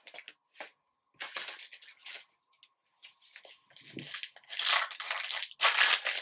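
Foil wrapper of a 2020 Topps Star Wars Return of the Jedi Black & White trading card pack crinkling and tearing as it is pulled open by hand. There are scattered rustles at first, and it is loudest in the last second and a half.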